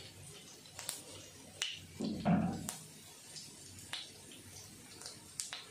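Whole cumin seeds spluttering in hot mustard oil in a kadai: scattered sharp pops a second or so apart. A louder, duller sound comes about two seconds in.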